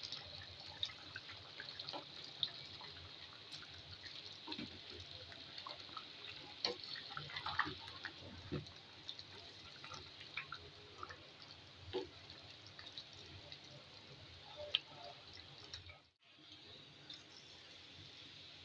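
Mezbani daal, a beef and lentil curry, bubbling at a simmer in the pot: irregular small pops and blips over a steady hiss. It cuts off abruptly about sixteen seconds in, leaving only a faint hiss.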